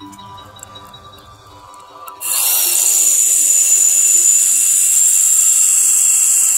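A loud, steady, high-pitched hiss, with a bright whistling tone through it, starts suddenly about two seconds in and runs on without a break.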